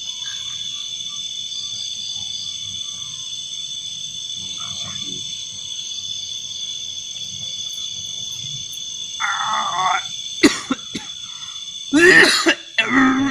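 Steady chorus of night insects chirring. From about nine seconds in, a man makes a few loud, harsh throaty outbursts, the loudest near the end, with a sharp click between them.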